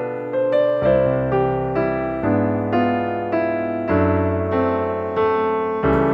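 Background music: a gentle electric piano piece, with notes struck about twice a second over slowly changing bass notes.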